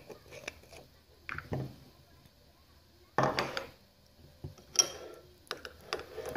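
A glass salt jar being handled: its lid opened and salt tipped out toward a bowl, heard as a few short clicks and knocks with one louder rattle about three seconds in.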